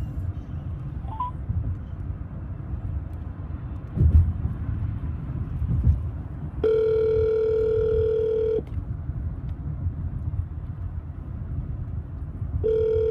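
Telephone ringback tone through the car's hands-free speakers: two steady rings of about two seconds each, about six seconds apart, the second starting near the end, meaning the outgoing call is ringing and not yet answered. Low road rumble in the car cabin underneath, with a thump about four seconds in.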